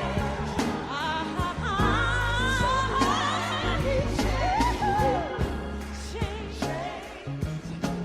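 Gospel song playing: a singer's voice with vibrato over bass and a steady beat.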